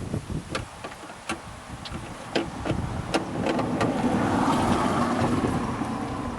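Sharp clicks and taps of hard parts as a replacement car door handle is fitted onto its latch linkage. About halfway through, a steady mechanical whir starts, runs for about three seconds and fades.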